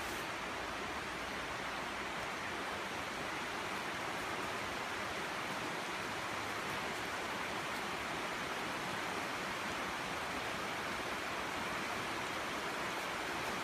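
Fast-flowing river with white water, rushing steadily.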